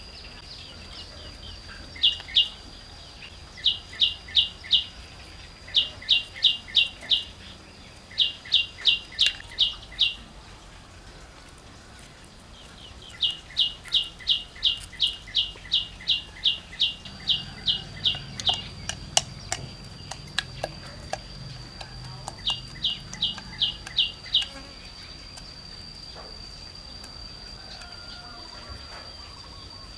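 A bird calling in quick runs of sharp, evenly spaced chirps, four to six at a time with short pauses between, over a thin steady high insect whine. The chirping stops a few seconds before the end.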